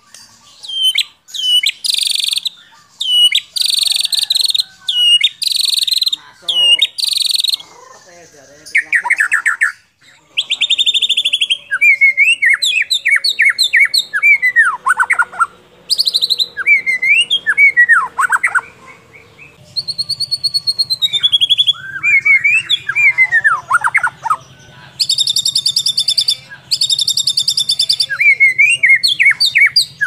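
White-rumped shama (murai batu) song on a masteran training recording: loud, varied phrases. Bouts of rapid harsh chattering open and close the song, with quick rising and falling whistled notes in between.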